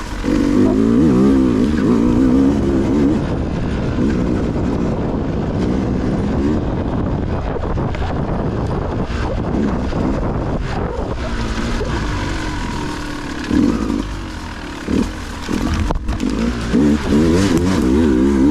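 Dirt bike engine revving up and down over and over as the bike is ridden through rough, rocky trail, with a few sharp knocks in the second half.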